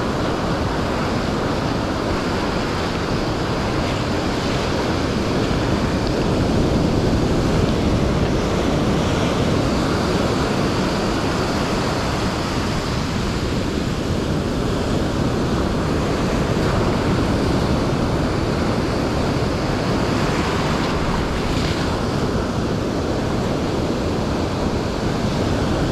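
Ocean surf breaking and washing over a sandy beach, a steady noise with wind buffeting the microphone.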